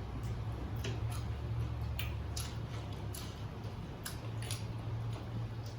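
Eating sounds: irregular soft, wet mouth clicks and chewing, over a steady low hum.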